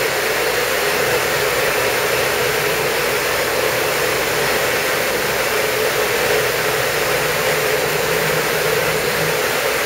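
Steady rush of blowing air with a faint low hum underneath, from the running air flow of a semiconductor wet-bench cleaning station.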